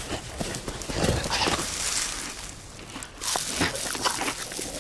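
Cartoon sound effects of animals on the move: irregular footsteps and rustling, with a brief lull about three seconds in.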